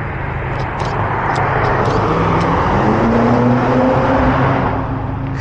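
Another car's engine revving, its pitch climbing slowly and growing louder over a few seconds before easing off near the end, over a steady low engine hum.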